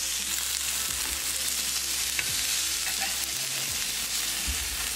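Breadcrumb-coated Dover sole fillets sizzling steadily in shallow olive oil on a hot tawa, with a few light taps of a metal slotted turner as the fillets are turned over.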